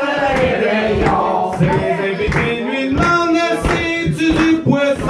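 A man singing into a microphone through a PA speaker, with electronic keyboard accompaniment and a steady beat. Some notes are held for about a second near the middle.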